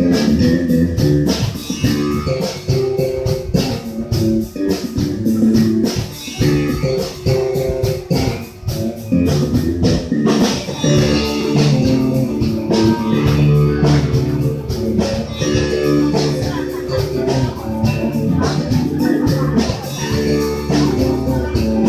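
Live band playing amplified electric guitars over bass and drums with a steady beat.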